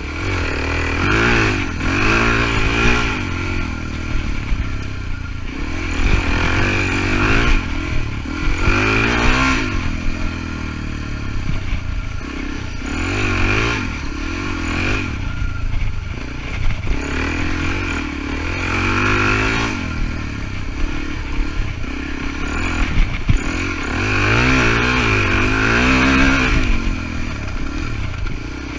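Suzuki DR-Z400E dirt bike's single-cylinder four-stroke engine being ridden hard, the revs climbing and dropping back every few seconds with throttle and gear changes, with clatter and rattling from the bike.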